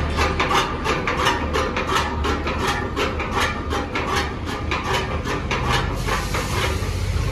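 A Ganga Super chaff cutter turning over, its blades swishing in an even rhythm about four times a second, stopping about six seconds in.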